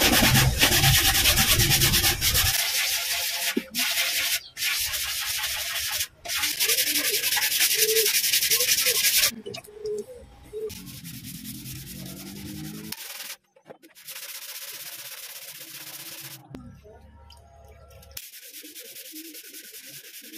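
Wet sandpaper on a hand-held sanding block rubbing back and forth over body filler on a motorcycle's metal fuel tank. The rubbing is loud for the first nine seconds or so, quieter after, and breaks off abruptly a few times.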